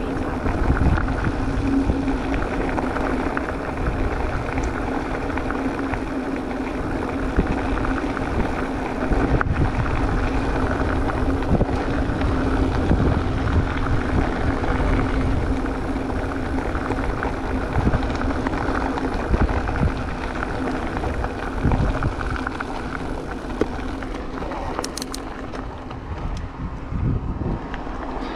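Haibike electric mountain bike ridden over a trail: a steady motor hum over tyre rolling noise, with small knocks and rattles from bumps. Wind buffets the microphone.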